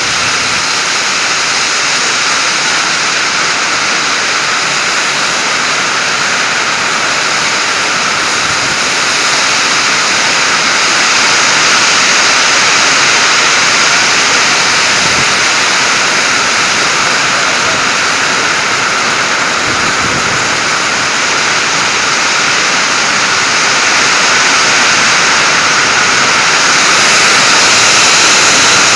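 Torrential hailstorm: hailstones pelting down hard on the ground and on a corrugated sheet-metal shed, a dense, steady hiss that grows a little louder about a third of the way in and again near the end.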